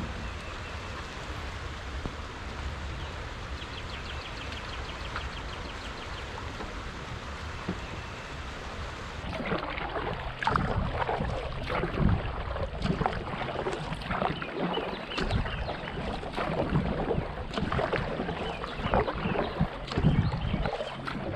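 Steady water and wind noise, then from about nine seconds in, a run of irregular splashes from a kayak paddle's blades striking the water.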